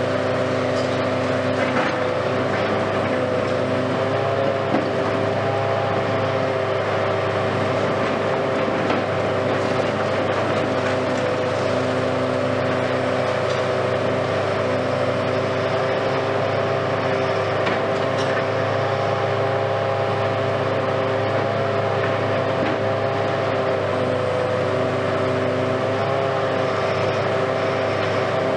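Hitachi Kiesel KMC520 high-reach demolition excavator running steadily under working load, a constant engine and hydraulic hum with several steady pitched tones, broken by a few faint knocks from concrete being broken away.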